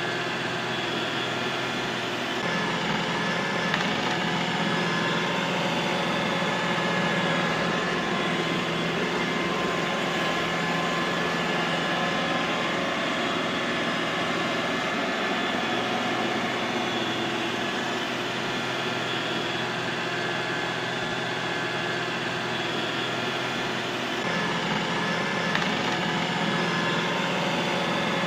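Robot vacuum cleaner running: a steady motor and fan whir with a few thin whining tones over it. The low hum shifts slightly about two seconds in and again near the end.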